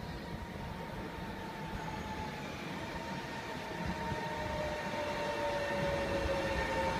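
Trenitalia Jazz electric multiple unit on the Leonardo Express, approaching and getting louder, with a low rumble from the wheels and an electric whine that falls slowly in pitch during the second half.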